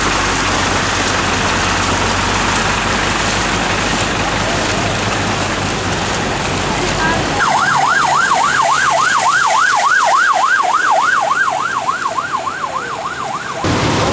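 A steady wash of noise from vehicles and water on a flooded road, with a low engine hum. About seven seconds in it changes abruptly to an emergency vehicle siren yelping rapidly up and down, about three sweeps a second, which cuts off near the end.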